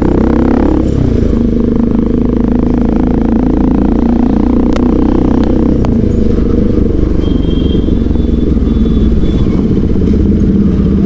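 Motorcycle engine running steadily while riding at low speed, with a couple of brief clicks midway.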